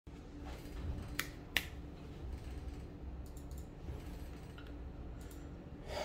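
Two sharp clicks, a little over a second in and again about half a second later, then a few faint ticks over a low, steady hum.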